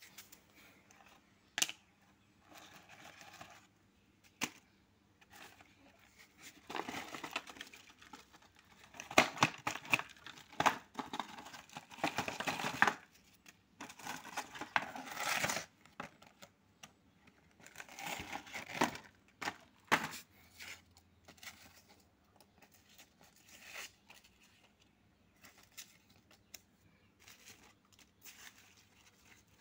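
Stiff paper recharge vouchers being handled, shuffled and spread out on a concrete floor: irregular rustling and crinkling with sharp little clicks, busiest in the middle and sparser near the end.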